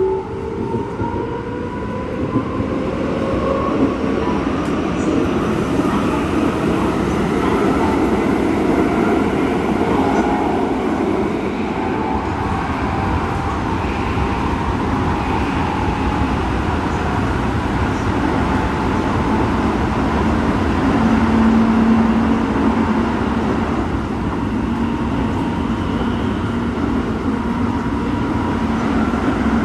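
Keikyu train running, heard from inside a car with Toyo IGBT-VVVF traction equipment. A rising inverter and motor whine near the start shows the train picking up speed. After that comes steady running noise of wheels on rail, with a faint motor tone. This car is known for a strong abnormal traction noise.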